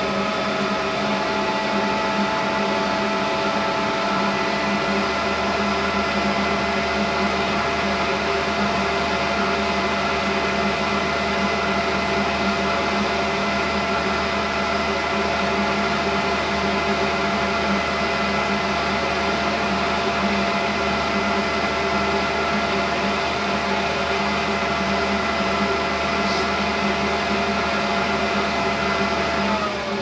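Trane TUY gas furnace's inducer draft motor running with a steady hum and whine that creeps up slightly in pitch at first, then winds down in pitch as it shuts off at the very end. The pressure switch stays open the whole time it runs, with about 21 volts across it, so the furnace does not go on to fire.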